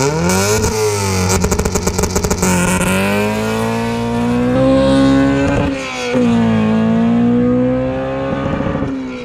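Honda B16 VTEC inline-four in a Citroën AX accelerating hard, its pitch climbing through each gear and dropping back at the upshifts.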